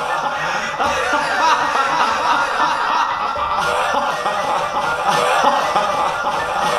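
A man laughing on and on in a long, drawn-out laugh, over background music.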